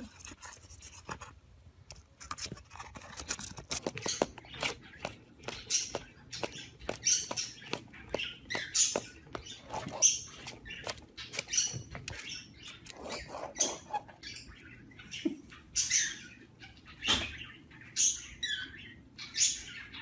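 Sun conure giving short, high-pitched chirps over and over, about one or two a second, some dropping in pitch. A few soft clicks come before the calls start.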